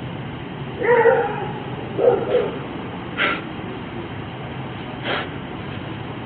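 A dog barking: two short barks about a second apart, then a few brief, sharper sounds, over a steady low background hum.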